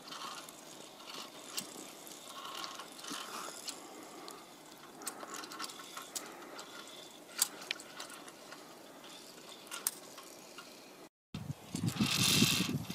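Faint, scattered clicks and scrapes of via ferrata gear: carabiners and lanyard on the steel cable, with boots on rock. After a brief dropout about 11 seconds in, a louder stretch of rustling and clinking follows.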